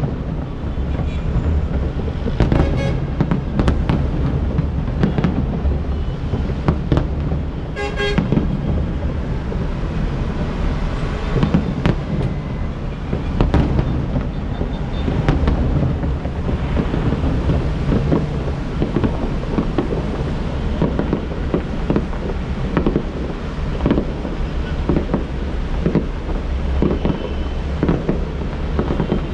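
Aerial fireworks going off, many bangs and pops in quick succession, over a steady low rumble of city traffic with an occasional car horn.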